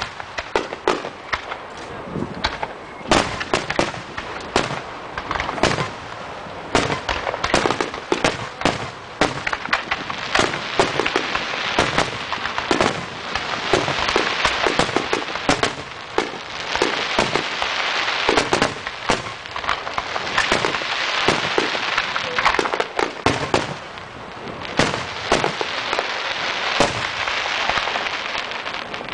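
Aerial fireworks going off in rapid succession: many sharp bangs and pops overlapping one another, with long stretches of dense crackling in between.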